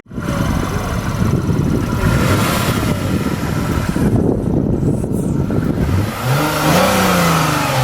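Car engine running with a deep rumble, then revving up and back down from about six seconds in.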